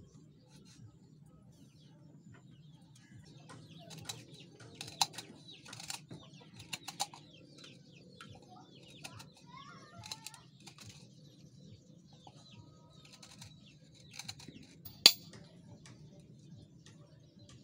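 Scattered knocks and scrapes of a steel blade and chisel working a green bamboo tube, with one sharp loud knock near the end as the chisel is struck into the bamboo. Birds chirp faintly in the background.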